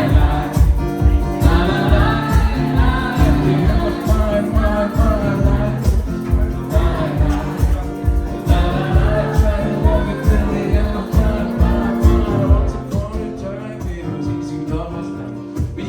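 Live indie-pop-folk band playing, with singing over a steady pulsing beat; the music gets somewhat quieter near the end.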